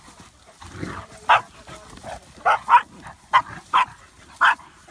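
A dog barking in play: six short, sharp barks, the first about a second in, then coming in quick pairs.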